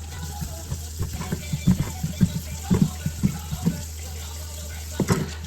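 Water running from a kitchen tap into a sink, with a run of light, irregular knocks and clatter from things handled in the sink.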